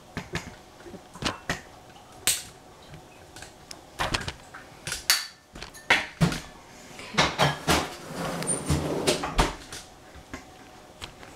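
Irregular kitchen clatter: scattered knocks and clicks of cookware, utensils and cupboard doors being handled, with a short stretch of rustling about eight seconds in.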